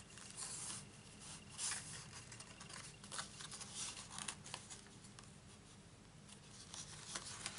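Faint rustling and rubbing of a strip of gingham patterned paper as hands position it and press it down onto a card, in short irregular scrapes over a low steady hum.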